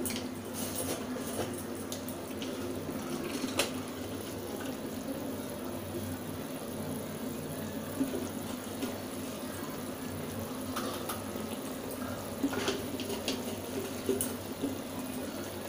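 Chili sauce simmering in a kadai, a steady watery bubbling hiss, with a few faint clicks of a spoon stirring cornflour into water in a cup.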